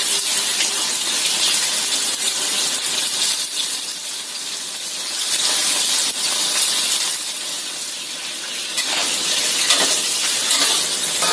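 Chicken pieces sizzling steadily in hot oil in a wok. From about nine seconds in, a spatula scrapes and clacks against the wok as the pieces are turned over.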